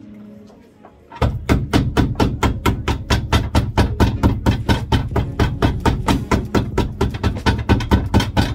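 Shoemaker's hammer rapidly striking a shoe heel, about five blows a second, as the heel is nailed on; the blows start about a second in over background music.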